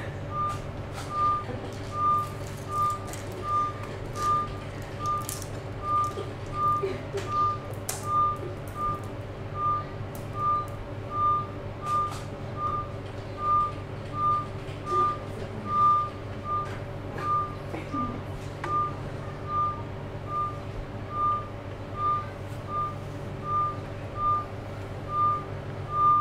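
A single-pitched electronic beep repeating evenly, about four beeps every three seconds, over a steady low hum. Light scattered clicks of glass beads being handled sound in between.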